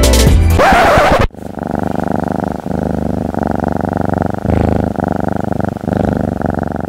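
A domestic cat purring close to the microphone. It purrs in long stretches that swell and dip with each breath, after background music cuts off about a second in.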